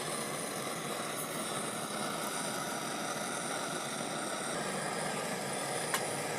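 Steady machine drone with faint steady tones, and a single click near the end.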